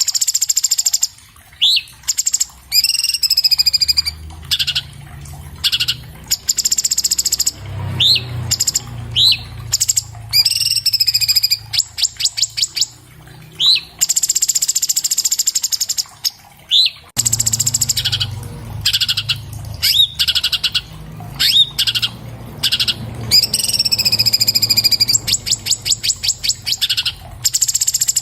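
Orange-bellied leafbird (cucak cungkok) singing a fast, dense song: short rising chirps, buzzy trills and quick runs of ticking notes, with hardly a pause.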